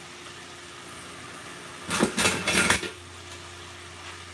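Kitchenware clattering for about a second around the middle, dishes and utensils knocking together, over a low steady hum.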